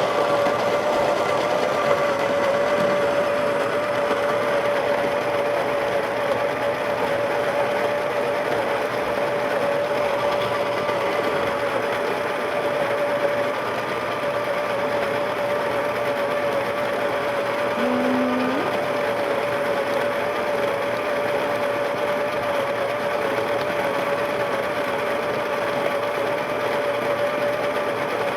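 Baratza Preciso conical burr coffee grinder running steadily under a full load of beans, with an even motor whine that holds one pitch throughout.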